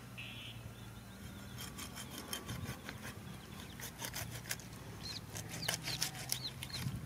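Knife scraping scales off a hand-held fish in a quick series of short rasping strokes, starting about a second and a half in. A few short high chirps come near the end.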